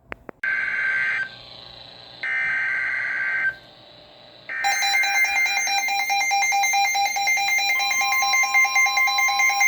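Three data bursts of a NOAA Weather Radio SAME alert header, each a harsh warbling screech about a second long. They are followed by a loud, rapidly pulsing electronic alarm beep. Near the end the steady 1050 Hz Warning Alarm Tone joins it, signalling a new warning broadcast.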